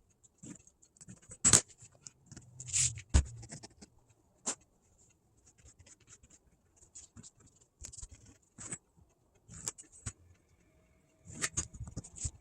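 Handling upholstery material and tools on a worktable: scattered light knocks and clicks with short scrapes and rustles, sparser in the middle.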